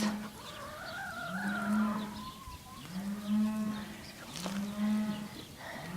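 Cattle mooing: a run of short, low calls about a second and a half apart.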